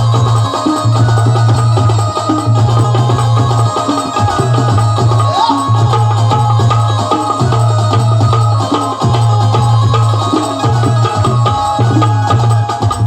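Instrumental interlude of Marathi devotional folk music: hand-drum percussion over a sustained melody instrument, with a low bass note that sounds in long pulses and breaks every couple of seconds.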